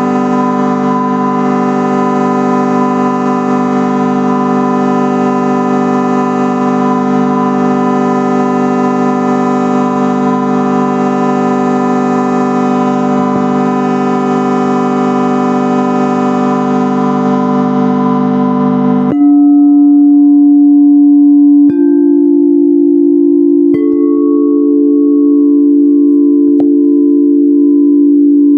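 A drone of layered ringing tones held steadily. About two-thirds of the way through it switches abruptly to a few purer tones, and further tones join about two and five seconds later, slowly wavering.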